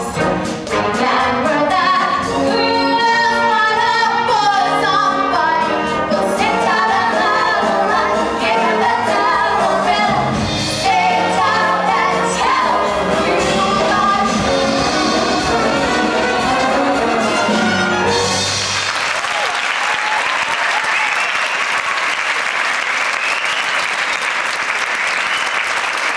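Pit orchestra with brass playing the final bars of a show tune, with the singers' voices, up to about two-thirds of the way through, when the music ends and audience applause takes over.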